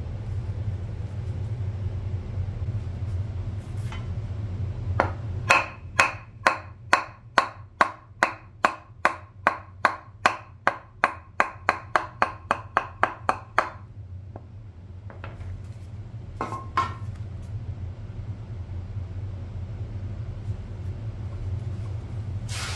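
A hammer striking down on the piston of a Bilstein HD shock absorber, trying to drive the piston out of the shock body. It lands a run of about two dozen ringing blows at about three a second, with a few more knocks a little later.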